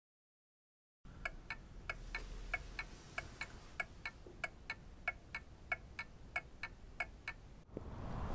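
Regular, even ticking, about three ticks a second, starting after a second of silence. Near the end the ticking stops and a low, steady background hiss comes in.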